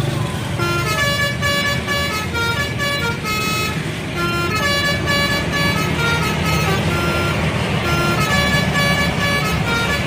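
Indonesian bus telolet horn, a multi-tone air horn playing a quick tune of stepped notes that begins about half a second in, over the low rumble of the bus engine and traffic.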